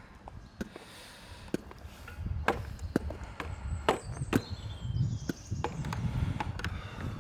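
Beatbox percussion: sharp clicking hits about two a second over a low bass, picked up thinly by a camera's built-in microphone.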